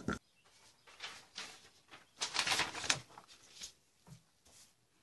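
Paper and card rustling with light handling noises in a few short bursts, the longest and loudest about two to three seconds in, as gloved hands work over a paper flyer and an index card holding flash powder on a digital scale.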